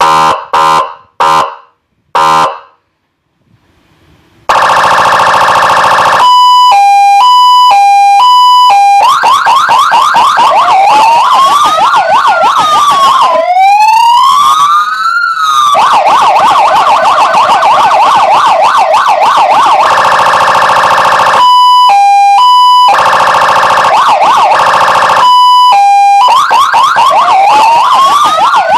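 AS Signal AS-V9-3 300-watt electronic siren sounding through its speaker, stepping through its tones. Four short horn blasts come first. After a brief gap it runs a steady buzzy horn, a two-tone hi-lo, a fast warbling yelp, and a wail that rises and falls, then repeats horn and hi-lo before rising into the wail again near the end.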